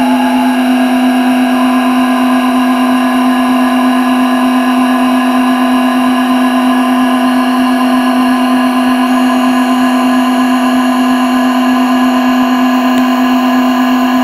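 Frozen spectrum of a female voice resynthesized as a sustained drone: one strong steady low tone under a dense stack of steady higher tones. The upper tones shift in steps as the frequency-mapping curve is redrawn.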